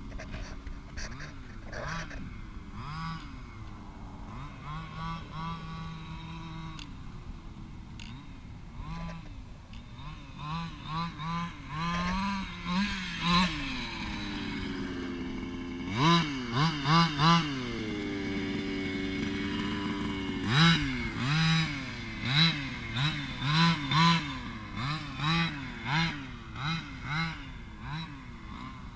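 Two-stroke gas engine of a Losi DBXL 1/5-scale RC desert buggy, revving up and down over and over as the throttle is worked, with rapid short blips through the second half.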